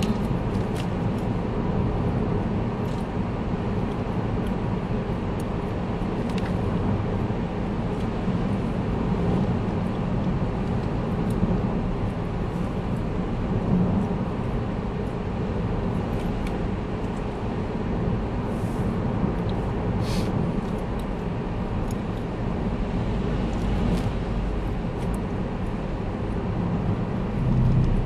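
Car driving along at a steady speed, heard from inside the cabin: a constant low rumble of engine and tyre road noise.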